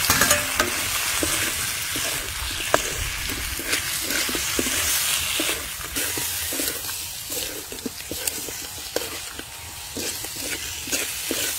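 Whole raw shrimp sizzling in hot oil with garlic and chili as they are stir-fried, a steady frying hiss that is loudest as they first hit the pan, with many short clicks and scrapes of stirring against the pan.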